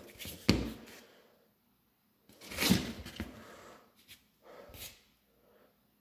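Handling noise from a plastic flashlight: a knock about half a second in, then a longer scraping rustle a couple of seconds later, the loudest sound, and a few softer scuffs as the light is set down on a cardboard surface.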